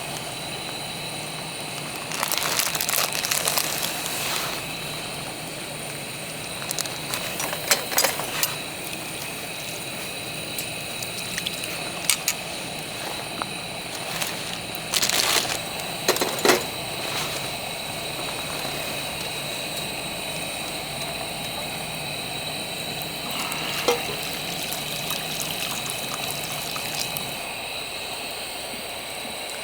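Campfire cooking: a steady hiss with scattered clinks of utensils against a pot, and a few short splashing bursts of liquid being poured or stirred, about two seconds in and again around the middle.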